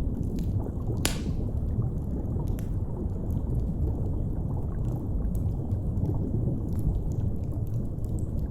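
Steady, deep underwater rumble with scattered crackles and pops from a fire, one sharper pop about a second in.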